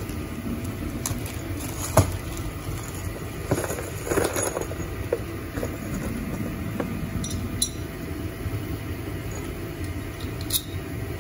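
Small steel bolts, nuts and washers clinking and clicking now and then as they are picked out and sorted by hand, over a steady low background hum.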